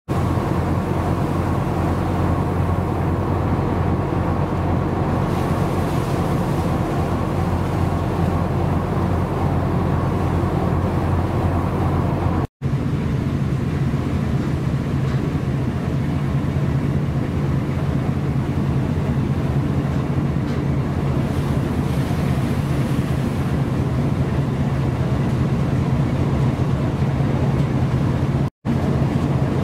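A steady low mechanical hum with wind noise and the wash of a rough sea, without a break, briefly cut twice at edits.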